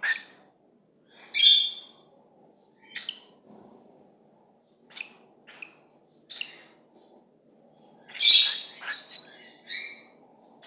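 Young white-faced cockatiel giving short harsh, hissy calls, about eight in all, the longest and loudest about eight seconds in.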